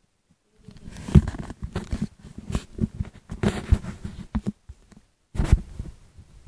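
Handling noise from a handheld phone being moved about: irregular rubbing and knocking on the microphone, which starts about half a second in and breaks off briefly near the end before another burst.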